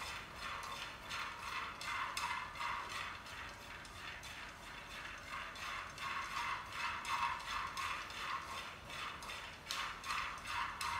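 Utensil stirring peanuts dry-roasting in a wok: a steady run of scraping and rattling strokes, several a second.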